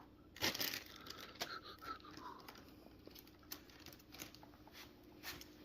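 Faint rustling and light clicks of plastic fan parts and packaging being handled.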